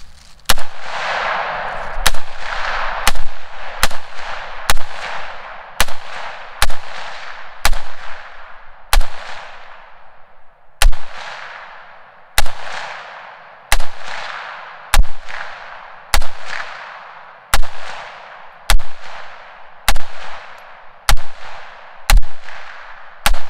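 Twenty semi-automatic rifle shots from a .308 AR-10 fitted with a simple ported muzzle brake (two ports on top, three on each side), fired at a steady pace of about one a second. There is a slightly longer pause about halfway through. Each report is sharp and concussive and trails off in an echo.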